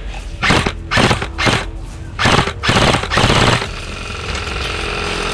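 Electric airsoft rifle firing about six short full-auto bursts over the first three and a half seconds. A steady held tone with several pitches follows.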